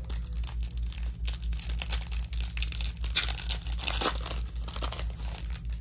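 Foil wrapper of a Topps Chrome basketball card pack being torn open and crinkled by hand, a dense crackling that is loudest about three to four seconds in.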